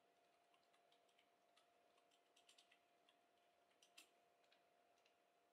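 Near silence, with faint scattered clicks of an ultrasound machine's keyboard as a label is typed onto the scan, over a faint steady hum.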